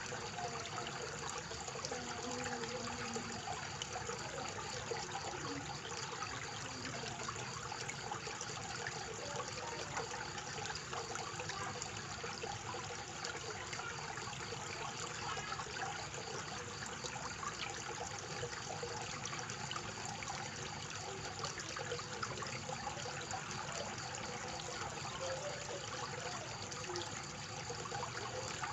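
Koi pond fountain running, its water falling into the pond with a steady, unbroken trickling and splashing.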